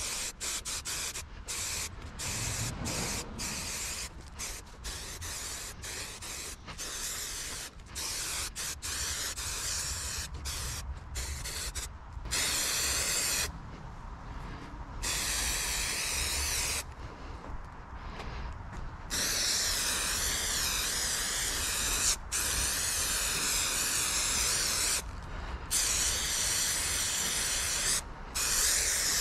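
Spray adhesive hissing out in quick short bursts, then in longer sprays broken by brief pauses after about twelve seconds.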